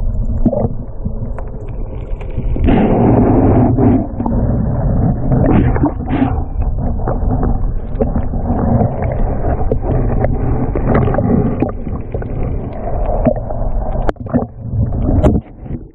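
Muffled underwater churning and knocking picked up by a submerged camera, loud and uneven, dropping sharply just before the end.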